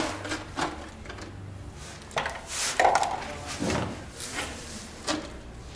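Scattered knocks and clicks of hands and tools at work while engine oil is being drained, the loudest a cluster of knocks about three seconds in, over a low steady hum.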